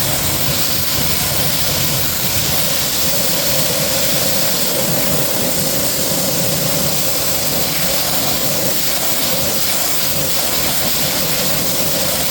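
Pressure washer's water jet rinsing wheel-acid and tire cleaner off a truck wheel and tire: a loud, steady spraying hiss.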